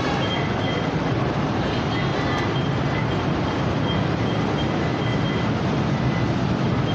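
Light rail train pulling out along the station platform, a steady running noise of wheels on rail with a faint high whine from its traction motors.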